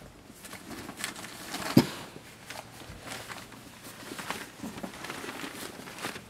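Puppies scuffling on newspaper during play: paws pattering and the paper rustling and crinkling, with one loud bump just under two seconds in.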